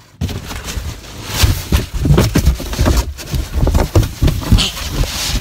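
Loud scuffling and rustling with many dull thumps as a child is tackled, the phone's microphone knocked and rubbed about close up. It starts abruptly just after the opening.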